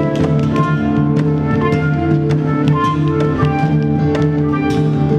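Live acoustic ensemble music: acoustic guitar, flute and handpan over held keyboard tones, with many struck and plucked notes.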